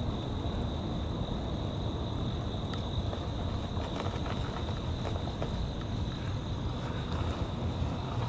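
Steady low rumble of wind and tyre noise from an e-bike rolling along a paved walkway and slowing down, with a faint steady high-pitched tone throughout.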